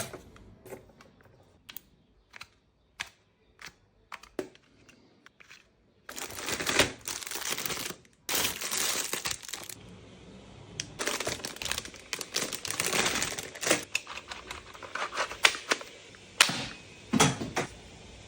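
Packaging being handled and opened: scattered clicks and taps for about six seconds, then continuous crinkling and rustling of wrapping, with short pauses.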